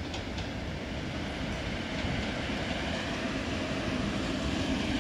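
PKP class EP07 electric locomotive and its Intercity passenger coaches rolling past on the rails, a steady rumble that grows gradually louder as the train nears, with a few light wheel clicks at the start.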